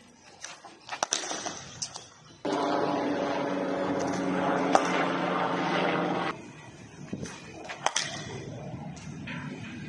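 Sharp knocks of a cricket ball off the bat and pitch during throwdown net practice, a few about a second in and again near the end. For about four seconds in the middle a louder steady hum with a fixed pitch starts and stops abruptly, covering the knocks.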